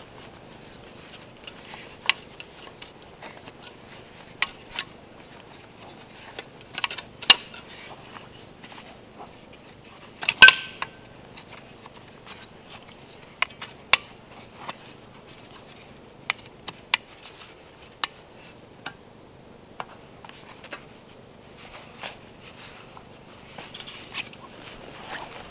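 Wooden frame parts of a homemade bucksaw clicking and knocking together as gloved hands set it up and work its tension cord. There is a sharp clack about ten seconds in, followed by a brief ring.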